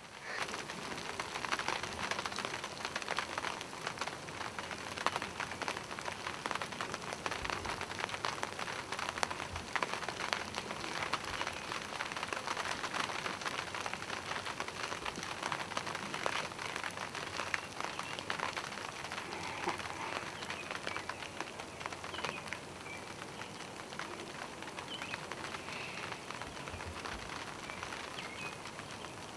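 Light rain pattering steadily, a dense crackle of fine drops.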